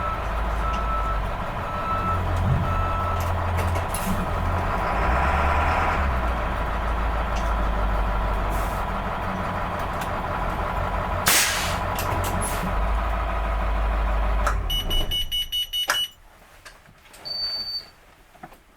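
School bus diesel engine running with a deep rumble while a reversing alarm beeps steadily for the first few seconds. A short burst of air hiss comes about eleven seconds in, typical of the air brakes being set, and the engine shuts off about fifteen seconds in.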